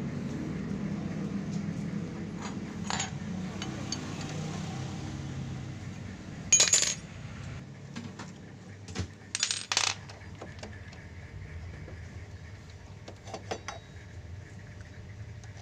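Scattered metallic clinks and taps from 12 mm mounting bolts being undone and pulled from a motorcycle's front disc brake caliper. The loudest clinks come a little past six seconds in and again near ten seconds. A low hum underneath fades out about halfway.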